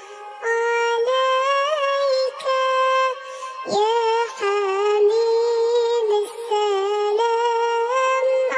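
A high-pitched voice singing a sholawat melody in long, drawn-out notes with a slight waver, pausing briefly about halfway through.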